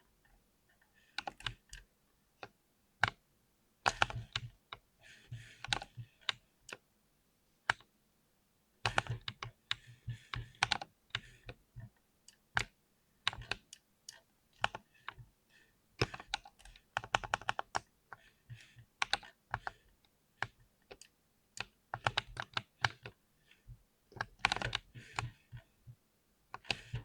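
Fast typing on a mechanical keyboard with Speed Silver switches: quick runs of key clicks in uneven bursts, broken by short pauses, the longest near a third of the way in.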